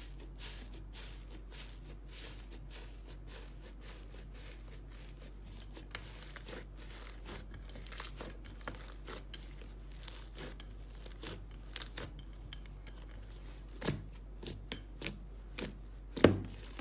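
Slime being squeezed and stretched close to the microphone, giving a dense, irregular crackle of small clicks and pops, with a louder pop near the end.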